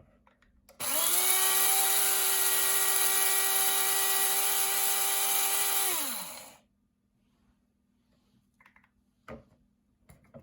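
KRUPS F203 blade coffee and spice grinder's electric motor grinding cumin seeds. It spins up quickly about a second in, runs at a steady high whine for about five seconds, then winds down and stops as the button is let go.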